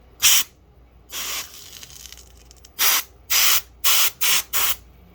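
Short blasts of blown air hissing, about seven of them, mostly in the second half, used to clear metal chips from drilling a stripped screw off the DVR's circuit board.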